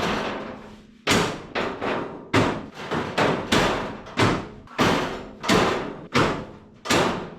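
A 1951 Ford's hood slammed shut onto a new home-made latch, then a run of about a dozen sharp metallic thumps, roughly two a second, each ringing out briefly.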